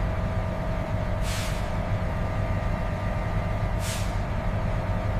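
Factory machinery running with a steady low hum, and two short hisses like released compressed air about a second and about four seconds in.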